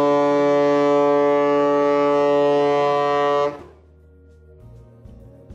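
The lightship Elbe 1's ship's horn sounds one long, steady blast that cuts off about three and a half seconds in. Soft background music follows near the end.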